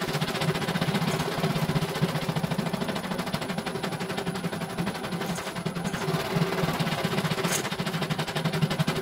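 CNY E900 computerized embroidery machine stitching a design, its needle running in a fast, even chatter.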